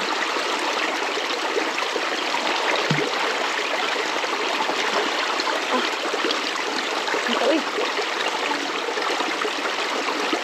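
River water flowing, a steady continuous rush, with a single short knock about three seconds in.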